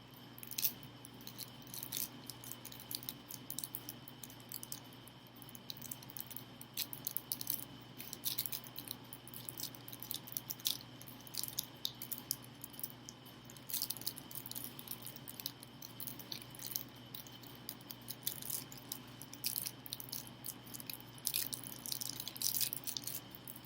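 Switch plate covers and their screws being handled: irregular small clicks and taps throughout, over a faint steady hum.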